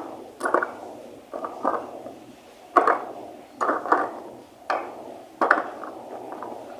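Handling noise from an action camera in its waterproof case being turned over: a series of sharp knocks and clicks, about eight, spaced unevenly.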